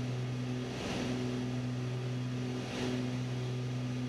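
Beechcraft Baron B55's twin piston engines and propellers droning steadily in level flight, with a slow pulse about every two seconds.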